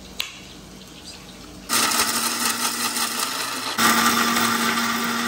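A wall switch clicks, and about a second and a half later an electric mixer grinder starts up with a steady hum, grinding coconut into a paste. The motor stops briefly a couple of seconds later, then starts again and runs louder.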